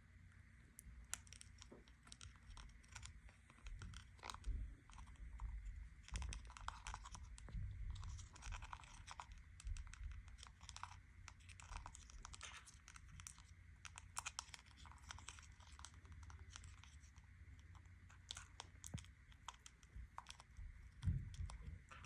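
Conure pecking and scratching at a new dish: faint, irregular clicks and crunches.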